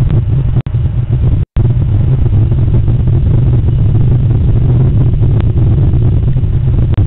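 Loud, steady low rumble on an outdoor security camera's microphone, broken by a short dropout about a second and a half in.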